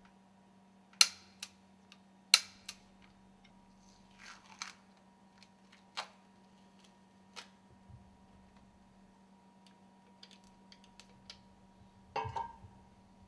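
Sharp metallic clicks and knocks of tools working the bolts of a stuffing box housing as they are tightened, two loud ones in the first few seconds and a short rattling cluster near the end, over a steady low hum.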